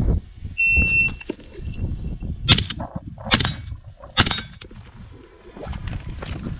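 Shot timer's start beep, a steady high tone lasting under two seconds, followed by three sharp rifle shots about two and a half, three and a half and four seconds in, over low rumbling wind and movement noise.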